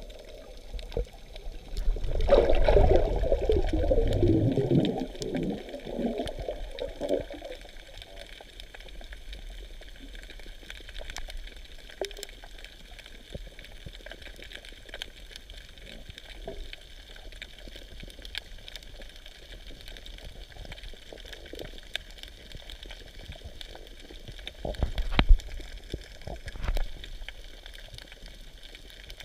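Underwater sound picked up by a submerged camera: a steady muffled water hiss. About two seconds in comes a louder gurgling, bubbling rush lasting several seconds, and a shorter burst of bubbling comes near the end.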